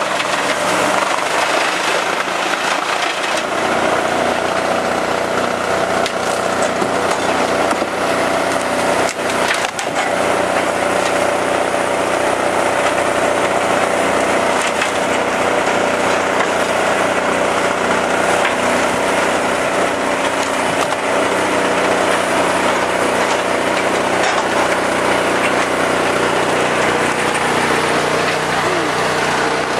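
Chainsaw running steadily at high revs, cutting through wood, with a brief dip about nine seconds in.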